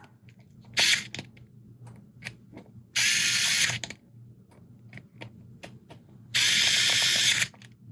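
Low-power electric screwdriver driving small M3 hub bolts into an RC crawler wheel in three short whirring bursts, the longer two lasting about a second each. Small clicks and taps of handling fall between the bursts.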